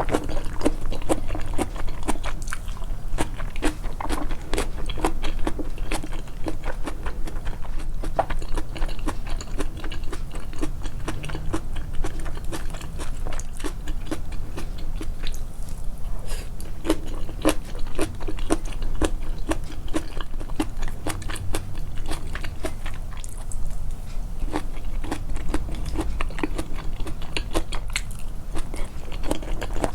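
A person chewing food close to the microphone, a dense run of crisp crunching and smacking clicks. The chewing is boosted in editing to stand out.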